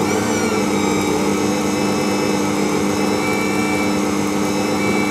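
Ankarsrum Assistent stand mixer running with its empty stainless-steel bowl turning: a steady motor hum with a higher whine that settles in pitch in the first half second as it comes up to speed.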